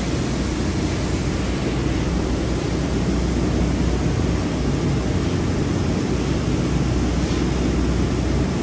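Steady low roar of a gas burner firing under the frying pan, with no change in level.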